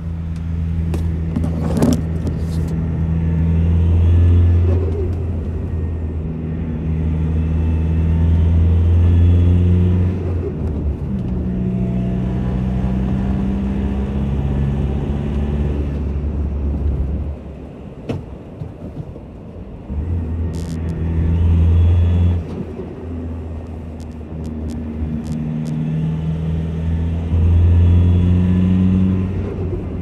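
A Ford tipper's turbocharged diesel engine, heard from inside the cab as it pulls through the gears: the engine note climbs under throttle and falls away several times at gear changes. Each time the throttle is lifted there is a short chatter of turbo flutter.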